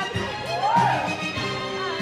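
Upbeat music with a steady beat, and a voice that swoops up and back down in one long sung 'ooh' about halfway through.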